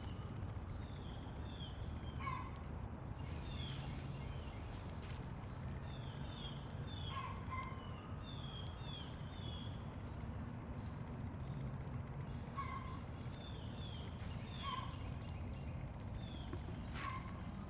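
Small birds calling: many short, high chirps that slide downward, repeated every second or so, with occasional lower notes, over a steady low rumble.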